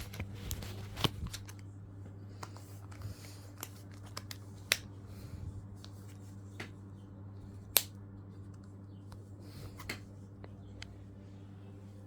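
Scattered sharp plastic clicks and taps of a Samsung GT-E1190 flip phone being handled while a SIM card and battery are fitted, over a steady low hum. The two loudest clicks come about a third and two thirds of the way through.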